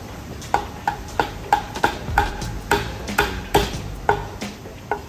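A cook's cleaver chopping cooked chicken on a chopping board: about a dozen sharp chops, roughly three a second, each with a brief ring.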